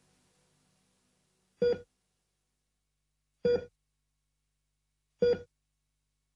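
Three short electronic beeps at an even pace, about 1.8 seconds apart, like a hospital patient monitor's heartbeat beep.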